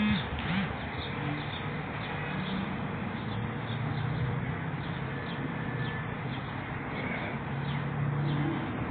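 Pigeons cooing in low, drawn-out coos, with small birds chirping faintly over steady street noise.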